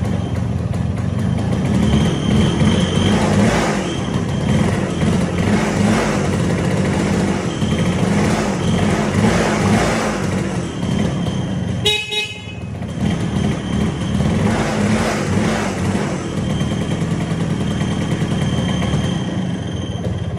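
1969 Kawasaki B1's 125cc single-cylinder two-stroke engine, just started, running on its stand and revved in repeated throttle blips that rise and fall. About twelve seconds in the revs drop briefly and a short high tone sounds.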